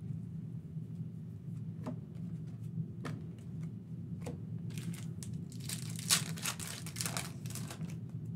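Foil trading-card pack wrappers crinkling and tearing, with a few sharp clicks of cards being handled, over a steady low hum. The loudest rustling comes in a cluster from about five to seven and a half seconds in.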